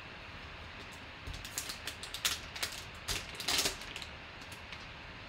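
Black plastic vault pack crinkling and tearing as hands pull it open: a run of crackles from about a second in, loudest near three and a half seconds, dying away about four seconds in.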